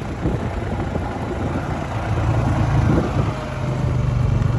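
Engine running steadily at low revs, a little stronger about two seconds in.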